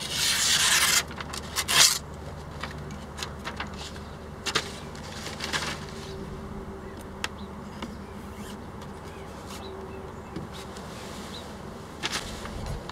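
Knife blade slicing through a hanging sheet of inkjet printer paper: a loud rasping hiss lasting about a second, then a shorter burst of paper noise near two seconds in. After that only faint paper rustles and small clicks.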